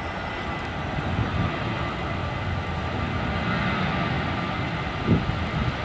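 Boeing 737-800's twin CFM56-7B turbofan engines at takeoff power during the takeoff roll: a steady low rumble with a faint whine, growing slowly louder.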